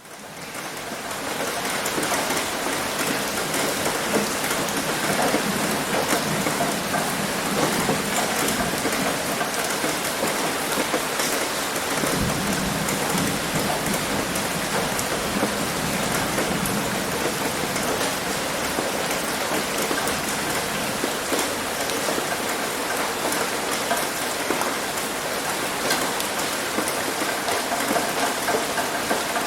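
Rain falling on a roof: a steady, dense patter of drops that fades in over the first couple of seconds.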